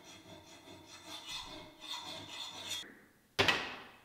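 A hand file scraping in several short strokes along the edge of a hardened steel dagger blade clamped in a vise. This is a file test of the edge's hardness, which turns up a soft spot about an inch long. A single sharp metal clank rings out near the end.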